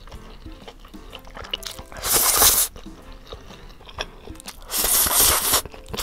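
A person slurping spicy stir-fried instant noodles: two loud slurps, the first about two seconds in and the second just before the end, each under a second long. Soft background music runs underneath.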